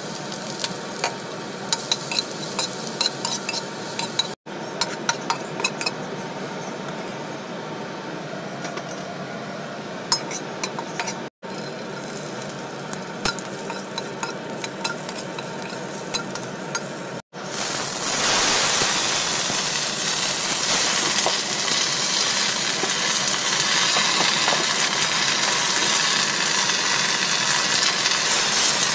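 Oil sizzling in a wok as chopped garlic and then sliced ginger fry, with a spatula clicking and scraping against the pan. A little over halfway through it jumps to a much louder, dense, steady sizzle as choy sum is stir-fried in the hot oil.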